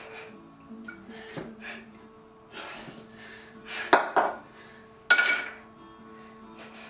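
One clean rep with two 16 kg kettlebells: the bells drop from the chest, swing between the legs and come back up to the chest, with sharp breaths and metal clinks. The loudest bursts come about four seconds in, as the bells swing down, and suddenly about five seconds in, as they land back on the chest. Music plays underneath.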